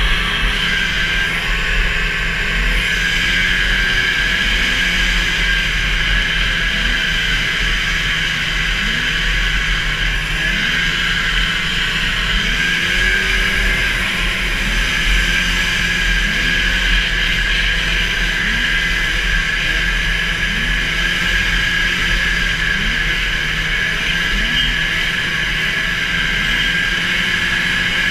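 Racing snowmobile's 440 cc two-stroke twin engine held at high revs, a steady high-pitched wail with a low rumble underneath, heard from aboard the sled.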